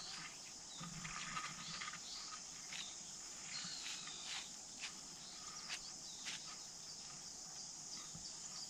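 Insects chirring steadily, with faint scattered rustles and small clicks of corn husks and soil being handled as a husked corn cob is pushed upright into the ground.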